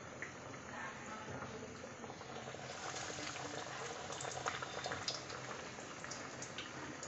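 Sabudana vadas deep-frying in hot oil in a kadai: a steady sizzle with scattered sharp crackles, busiest about four to five seconds in.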